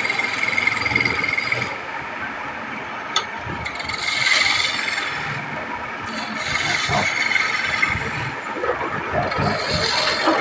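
Hand chisel cutting a wooden baluster spinning on a lathe, a scraping hiss of cutting that swells in several passes over the lathe's running noise. A steady high whine sounds for the first couple of seconds.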